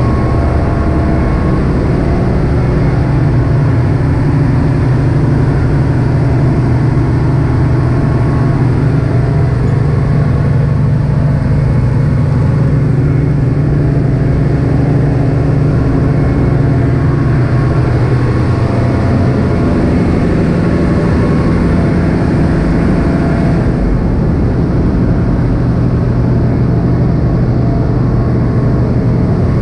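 Ship's onboard machinery running with a loud, steady low hum and rumble; the hum shifts a little about twenty seconds in.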